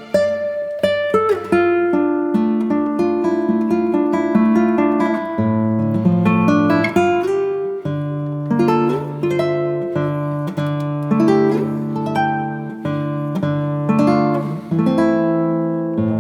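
Background music led by a plucked acoustic guitar, with notes picked one after another in a steady flow.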